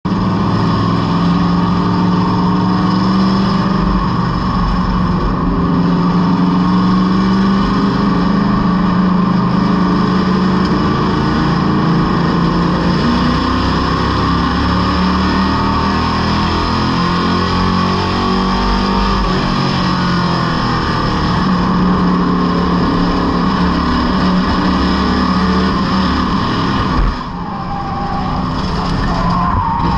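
Superstock stock car engine under hard throttle, heard from inside the cockpit, running loud and steady with its pitch rising and falling through the corners. About 27 seconds in, the engine note suddenly drops off.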